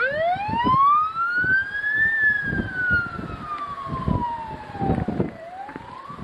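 Motor-driven outdoor warning siren winding up to a high wail over about two seconds, slowly winding down, then starting to rise again near the end: a tornado warning siren sounding with a tornado close by. Strong wind buffets the microphone underneath.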